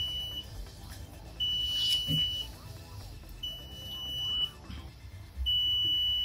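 Electronic buzzer on the monitor's circuit board beeping a high steady tone, about one second on and one second off. This is the bin-full alarm.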